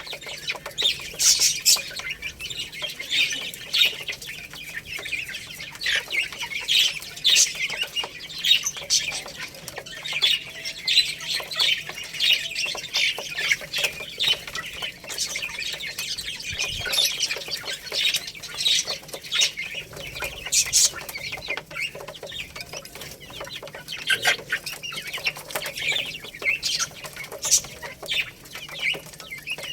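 Young chicks peeping continuously, many short high-pitched cheeps overlapping one another.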